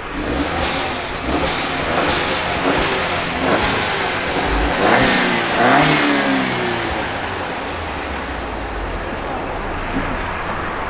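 VW Golf Mk6 1.4 TSI single-turbo engine accelerating, with short hissing bursts from a newly fitted blow-off valve venting boost between pulls. It then settles to a steady cruise.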